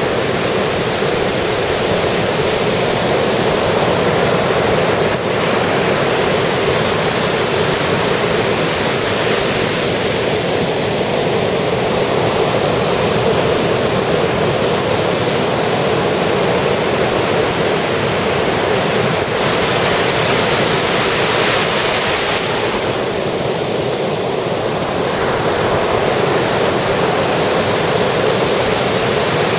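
Surf breaking and washing continuously on a sandy beach, a steady loud rush with a brighter wash about twenty seconds in.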